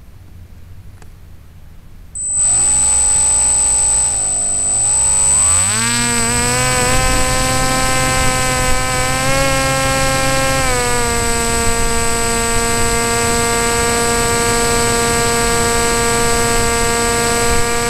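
RC airplane motor and propeller heard from the plane's onboard camera: it starts about two seconds in, dips and then climbs to a steady full-throttle pitch as the plane takes off, easing down slightly about halfway through, with a steady high whistle above the propeller.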